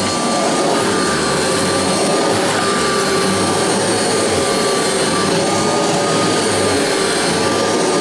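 Kirby Heritage upright vacuum cleaner running steadily: a constant rush of air with a high, steady motor whine over it.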